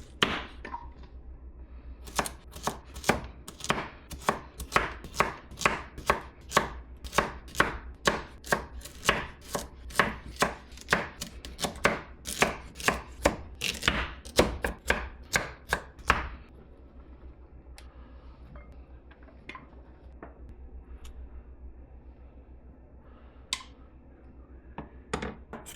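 Kitchen knife chopping split carrots on a cutting board, steady chops about two a second. The chopping stops about two-thirds of the way through, leaving only a few light knife taps.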